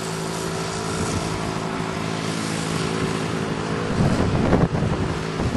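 A motor running at a steady speed, with wind buffeting the microphone in low gusts from about four seconds in.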